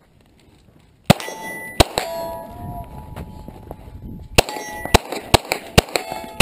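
Handgun shots with steel plates ringing on the hits: two shots about a second in, a pause, then a quicker run of shots about half a second apart.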